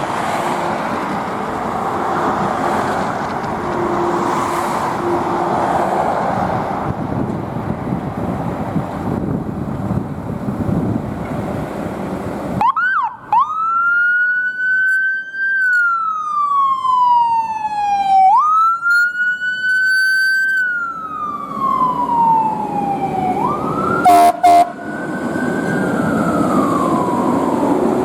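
Traffic and engine noise for about twelve seconds, then an emergency vehicle's wail siren: each cycle sweeps up quickly and slides down slowly over about five seconds. A short, loud horn blast comes near the end.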